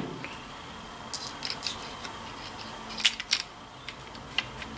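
Light clicks and taps of the Savage Model 64 rifle's parts being handled and fitted together during reassembly. The loudest few come close together about three seconds in.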